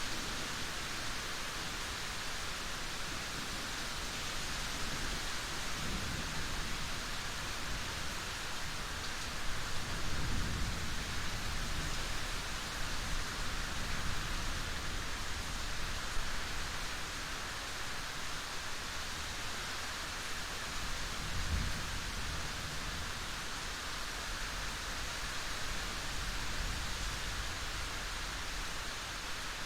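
Steady rain falling as a continuous even hiss, with a few soft low rumbles swelling up and fading.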